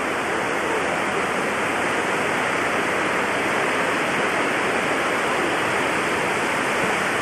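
Steady rush of ocean surf at a sandy beach, an even noise that holds level throughout with no single wave standing out.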